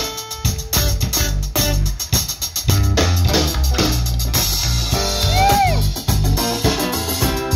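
Live band music: an electric bass guitar line over drum kit and guitar.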